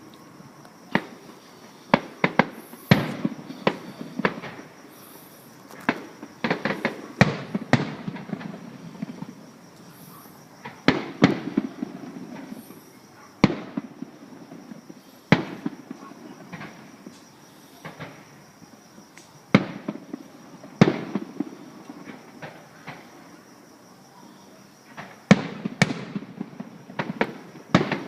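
Aerial fireworks exploding: a long irregular series of sharp bangs, some in quick clusters of crackles, the loudest followed by a rolling echo.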